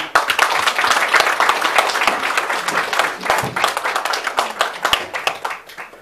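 Audience applauding: dense clapping that begins at full strength, then thins out and fades near the end.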